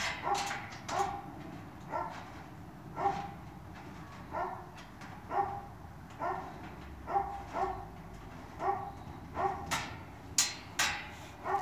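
A dog barking repeatedly in short, fairly high yaps, about one a second, with a few sharp clicks near the end.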